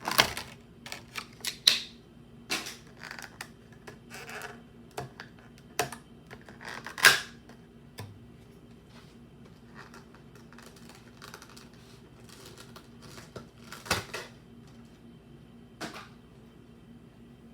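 Hands handling a Pokémon TCG collection box and its contents: a string of sharp taps, clicks and brief rustles, densest in the first half, then a few isolated clicks.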